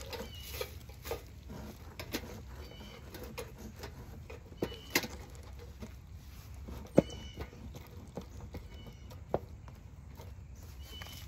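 Scattered clicks and knocks of a wooden beehive being worked apart, the loudest about seven seconds in, with a few short high chirps now and then.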